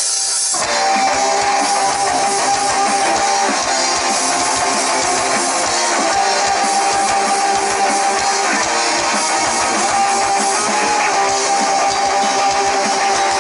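Heavy rock band playing live, loud: electric guitars and a drum kit, with the full band coming in about half a second in.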